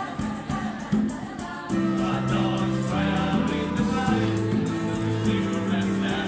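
Mixed choir singing with a djembe. Fuller, held chords come in about two seconds in, over a steady percussion beat.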